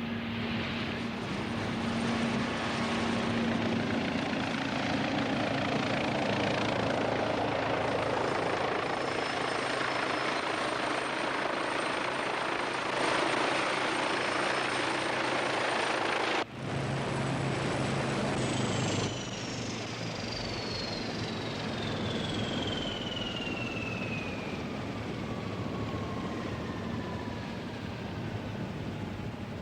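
Westland Wasp helicopter's rotor and turbine running loud and steady. After a sudden break partway through, a high whine falls steadily in pitch over the last ten seconds.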